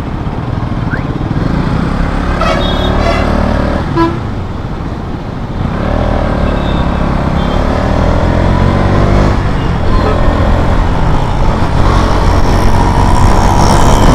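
KTM Duke 200 single-cylinder motorcycle engine running on the move, climbing steadily in pitch from about six seconds in as the bike accelerates, with wind rushing over the action-camera mic. Brief horn toots from traffic come about two to three seconds in.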